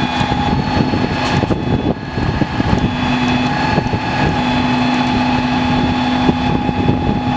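Heavy rotator tow truck's diesel engine running steadily, with a steady hum and whine over a dense rumble.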